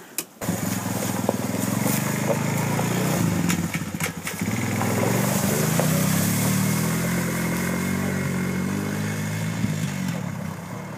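ATV engine running and revving as the quad rides off over a leafy dirt trail. It comes in suddenly about half a second in, and from about the middle the pitch rises and falls with the throttle.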